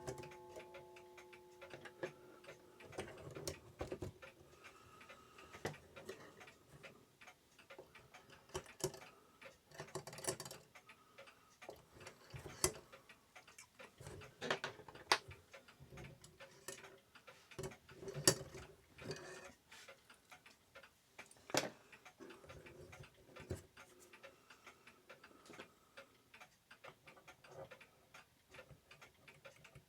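Light, irregular metallic clicks and taps of brass clock-movement wheels and arbors being handled and tried in their bushings, checking which pivots bind in bushings that are too tight.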